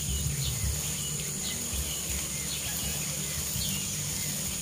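Rural outdoor ambience: insects droning steadily in a high whine, with a bird chirping briefly every so often over a low rumble.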